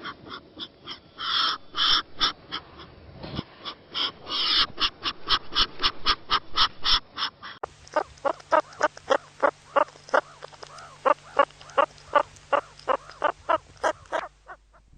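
An animal calling in short, pitched calls repeated rapidly, about three a second, in two separate recordings joined about halfway through.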